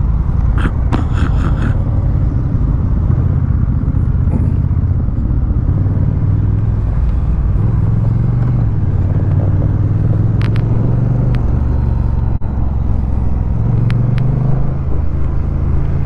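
Honda Rebel 1100 DCT's parallel-twin engine running under way on the road, its note shifting as the bike speeds up and slows, under a steady rumble. A few faint clicks and a momentary dropout about twelve seconds in are the recording's crackling, which the rider blames on the audio splitter added to his GoPro.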